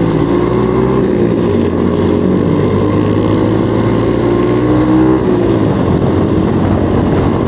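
Motorcycle engine running at a steady cruise under continuous wind and road rush, its note shifting slightly about five seconds in.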